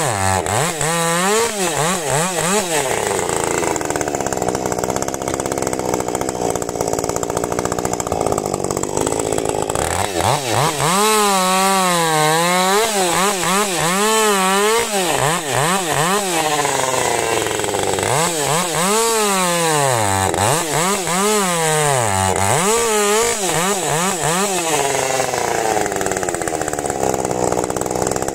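Ported Husqvarna 550 XP Mark II two-stroke chainsaw running at high revs through firewood cuts, its pitch wavering quickly up and down under load. Between cuts it runs more steadily for a few seconds, around 3 to 10 seconds in and again near the end.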